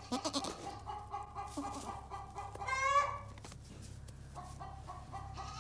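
Chickens clucking, with one louder call about three seconds in.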